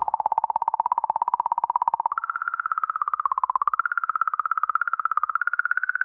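The 'song' of comet 67P recorded by the Rosetta spacecraft: oscillations in the magnetic field around the comet, too low in frequency to hear and made audible. It is a fast-fluttering, whistle-like tone that steps up in pitch about two seconds in and then wavers up and down.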